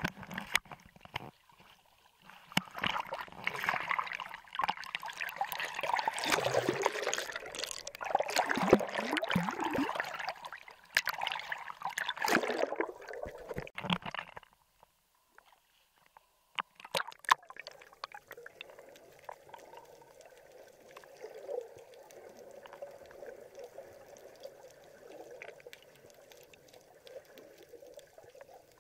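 Seawater sloshing, splashing and gurgling against a camera held at the surface by a swimmer, loud and irregular for about ten seconds. It breaks off briefly, then turns quieter and muffled as the camera goes under.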